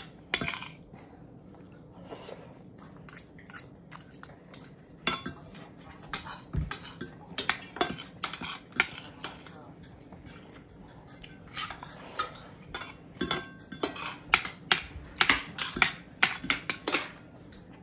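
Forks and spoons clinking and scraping against ceramic dinner plates as people eat, in irregular clusters of sharp clicks, thickest in the second half with a quieter spell just past the middle.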